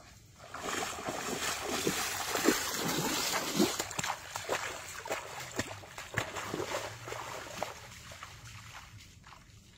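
Someone wading through shallow muddy water: irregular splashes and sloshing with each step, loudest in the first few seconds, then fading as the wader moves away.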